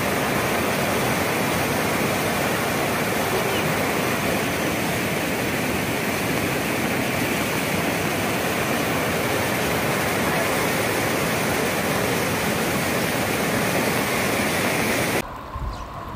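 Muddy floodwater rushing in a swollen river channel: a loud, steady rush of water that cuts off abruptly near the end, leaving a much quieter background.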